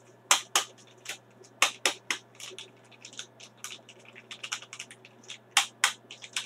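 A small foil-laminate powder sachet crinkling as it is handled and flexed between the fingers: a string of sharp, irregular crackles, the loudest coming in quick pairs.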